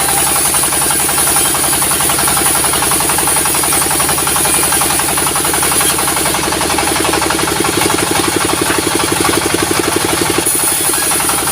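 Sawmill's diesel engine running steadily with a fast, even chugging.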